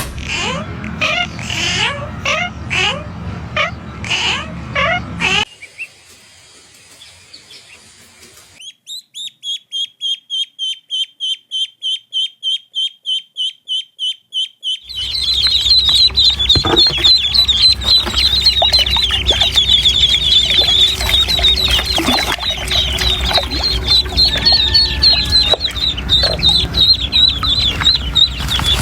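A cat mews repeatedly for the first few seconds. Then, about nine seconds in, a duckling starts peeping in a steady high series of about three peeps a second. From halfway through, a brood of ducklings peeps loudly all together.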